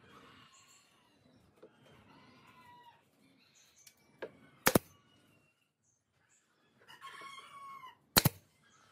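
Pneumatic brad nailer firing nails into wooden boards: two sharp shots about three and a half seconds apart, each a quick double crack, with a lighter click just before the first. Domestic fowl call faintly in the background.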